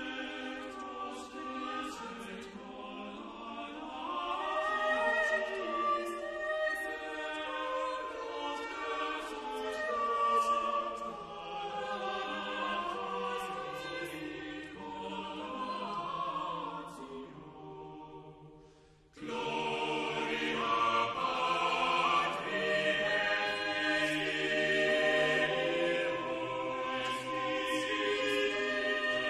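Background choral music: a choir singing slow, sustained chords. It fades out about 18 seconds in, and after a brief silence the singing starts again.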